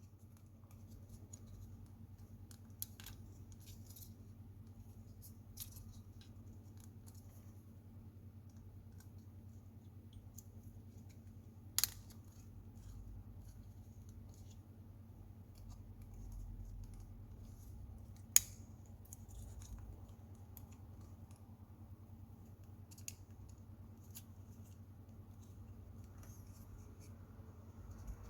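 Sparse small clicks and taps of a plastic remote-control casing and its parts being handled and fitted back together, the sharpest clicks about 12 and 18 seconds in, over a faint steady low hum.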